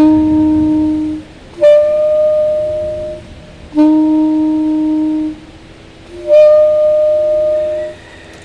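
Alto saxophone playing four long held notes, each about a second and a half with short breaks, alternating between a low note and the same note an octave higher: the octave key being pressed and released.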